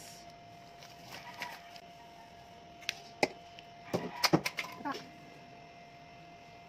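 Handling noises while toner is put on with a cotton pad: a couple of sharp clicks about three seconds in, then a louder cluster of clicks and taps around four to five seconds, over a faint steady hum.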